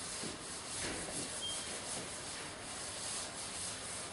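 Handheld eraser wiping a whiteboard: repeated back-and-forth rubbing strokes across the board's surface.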